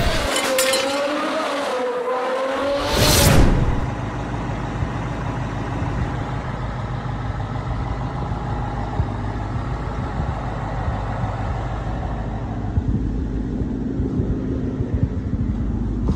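A short logo sound effect, a wavering tone that ends in a whoosh, then a Ford 5.0 Coyote V8 engine running steadily.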